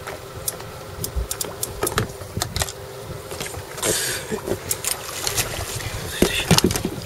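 Sounds of a small boat on the water: scattered knocks and clicks and water against the hull over a faint steady hum, with a short splashy hiss about four seconds in.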